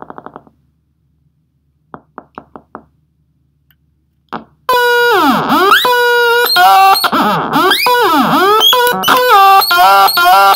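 Homemade oscillator synthesizer: a few short buzzy pulses at first, then, about halfway in, a loud buzzing tone sets in. As its knobs are turned, the tone swoops down and back up in pitch several times and then jumps between pitches.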